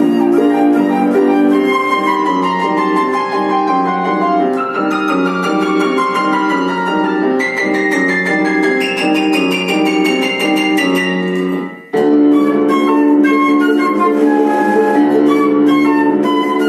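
Flute and piano playing a classical duet, the melody climbing in a long rising run through the middle. About twelve seconds in the music breaks off for a moment, then starts again.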